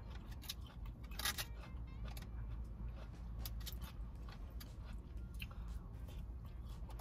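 Plastic fork scraping and clicking in a foam takeout container as food is picked up, with soft chewing, over a steady low hum inside a car cabin. A short burst of clicking and rustling about a second in is the loudest moment.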